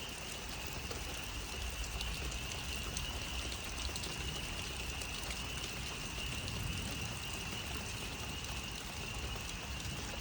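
A dense chorus of frogs calling together, heard as one steady high-pitched ringing with no break, over a background of rushing noise.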